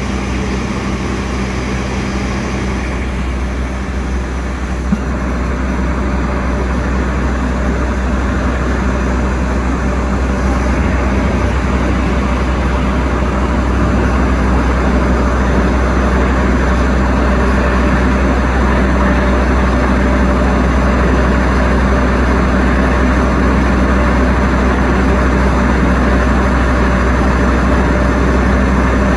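Electric commuter trains at a station platform: a steady low hum with running noise. It grows louder from about four seconds in to about twelve seconds in, then holds steady.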